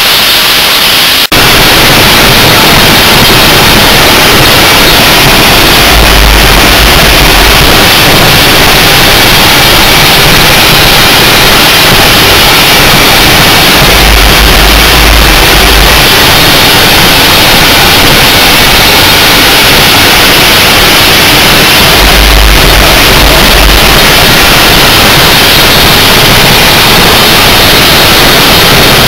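Coal-fired cog railway steam locomotive heard from inside its cab: a steady, loud roar and hiss that overloads the recording, with a deeper rumble swelling about every eight seconds.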